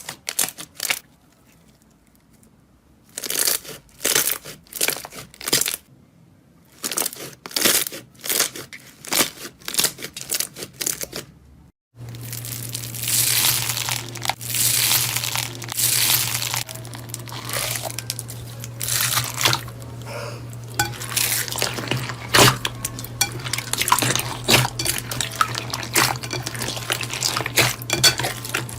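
Slime being squeezed and poked by hand, making crisp clicking and crackling pops in separate bursts. After a cut about twelve seconds in, the crackling turns denser and more continuous over a steady low hum.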